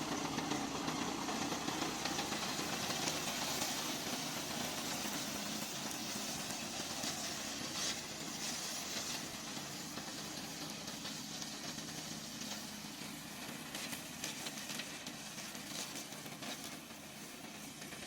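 Gasoline engine of a remote-control tracked mower running steadily, with a broad hiss over it, slowly getting quieter.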